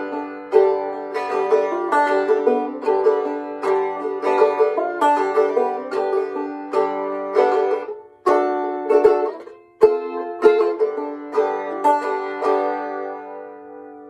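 Restored old five-string open-back banjo being picked, a steady run of plucked notes and chords with two brief breaks in the middle. The picking stops a little before the end and the last chord rings out.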